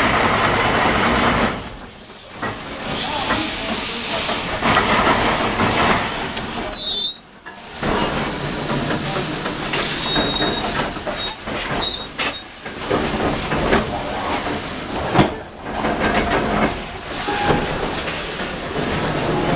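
Steam shovel working, with a steady hiss of steam and machinery clatter. The sound dips sharply for a moment three times.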